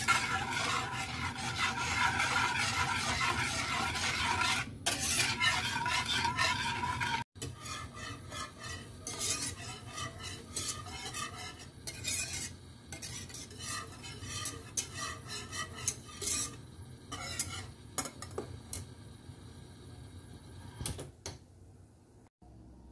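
Wire whisk beating thin, frothy liquid in a nonstick saucepan, its wires rattling and scraping against the pan. Fast and loud for the first several seconds, then slower, lighter strokes with scattered clinks that die away near the end.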